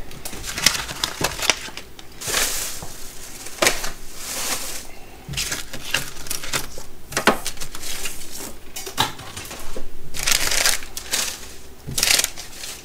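Packaging and small items being handled and moved on a table: irregular rustling and crinkling with several sharp clacks as things are set down.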